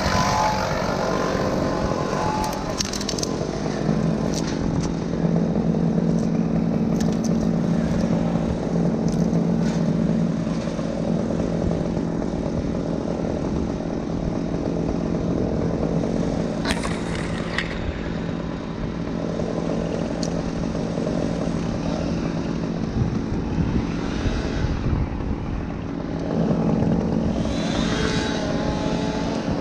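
An engine running steadily at a constant speed, louder for a stretch near the end, with a few brief scrapes over it.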